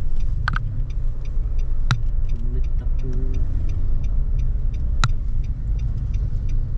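Car driving on a rough rural road, heard from inside the cabin: a steady low rumble of tyres and engine, with a few sharp clicks or rattles, the loudest about two seconds and five seconds in.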